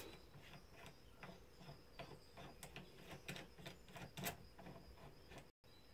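Faint, irregular light clicks and ticks of a threaded RCBS 9mm bullet seating and crimping die being screwed down by hand into a reloading press, turned until it just touches the case mouth.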